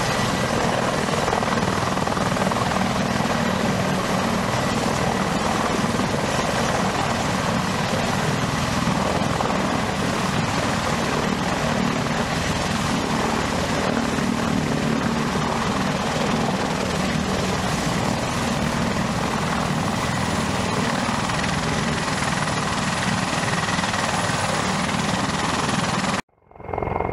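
Mil Mi-35M attack helicopter's rotors and twin turboshaft engines running close by as it hovers low and rolls on the ground: a steady, loud rotor noise with a high, even turbine whine. The sound cuts off abruptly near the end.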